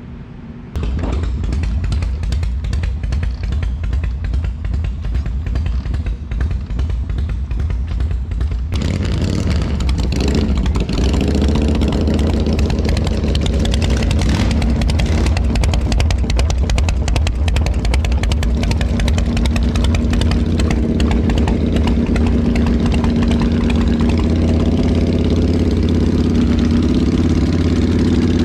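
Chopper motorcycle engines running, a steady rumble that starts abruptly about a second in. A second, fuller layer joins about nine seconds in, with a brief rise in pitch shortly after before it settles back to a steady idle.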